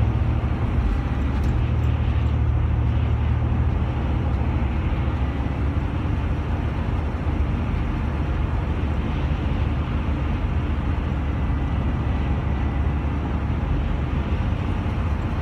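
Steady low rumble of a vehicle driving at highway speed, heard from inside the cabin, with a faint thin whine through the middle stretch.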